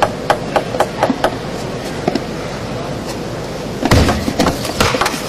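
Table tennis rally: the ball clicks sharply off paddles and table in a quick run of about six hits in just over a second. About four seconds in comes a louder burst of noise with more quick hits.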